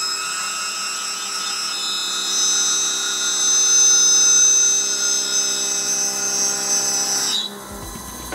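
End mill side-milling a metal block on a CNC milling machine, spindle at about 1990 rpm: a steady cutting whine of several high tones, growing louder about two seconds in and stopping suddenly about seven and a half seconds in as the cut ends.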